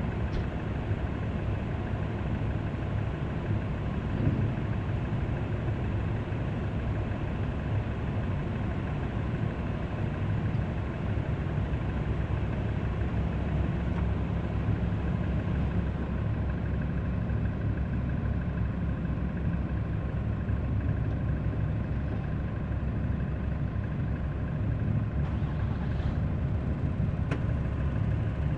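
An engine idling steadily, a low, even hum with no change in speed.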